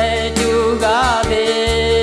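A man singing a Lahu-language song over an instrumental backing track. About a second in he holds a note with a wavering vibrato.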